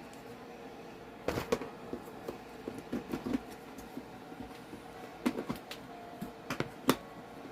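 Kitchen scoop and utensils knocking and clinking against a mixing bowl and the mix container while cornmeal mix is scooped in: a series of short, sharp clicks and light knocks in two clusters, with a pause between.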